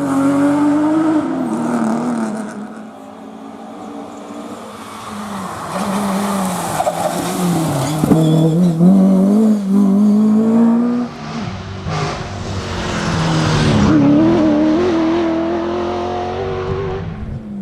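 Historic rally car engines driven flat out, the revs rising and falling again and again through gear changes and lifts. The sound changes abruptly about eleven seconds in, where a second car takes over.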